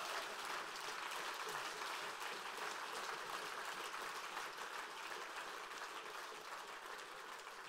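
Audience applauding: a dense, even clapping that slowly dies down toward the end.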